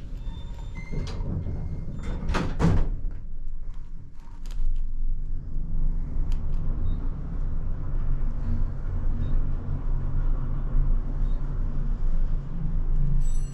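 Elevator doors sliding shut with a couple of knocks, then the elevator car travelling with a steady low hum and rumble. A high electronic chime sounds near the end.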